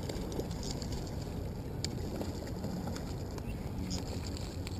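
Steady low wind rumble on the microphone, with a few faint clicks.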